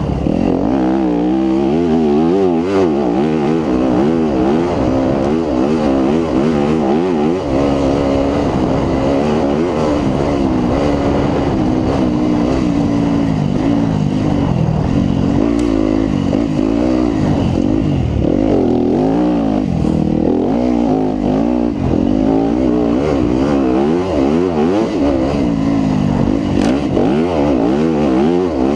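Yamaha WR250F four-stroke single-cylinder dirt-bike engine ridden hard, revving up and down without a break, its pitch climbing and dropping every second or so as the throttle is worked.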